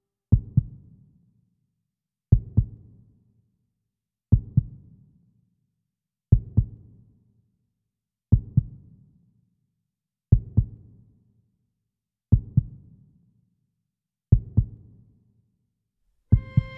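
A slow heartbeat: low lub-dub double thumps repeating about every two seconds, nine times, with silence between them.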